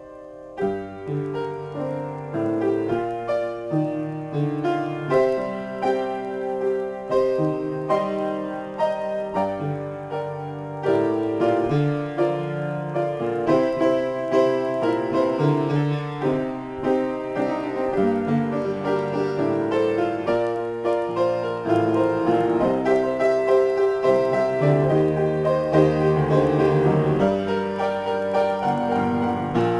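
Upright piano played solo in a free improvisation, a continuous run of notes in both hands. It starts softly after a brief pause and plays fuller and louder from about eleven seconds in.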